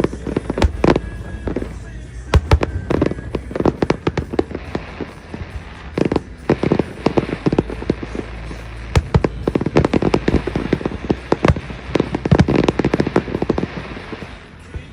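Aerial fireworks going off: many sharp bangs and crackles in quick, irregular succession.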